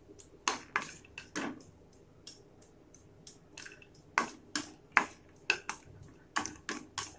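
Wooden spoon stirring cashews around a dry nonstick pan as they dry-roast, making sharp knocks and clicks on the pan. There are a few near the start, then they come quickly and steadily from about four seconds in.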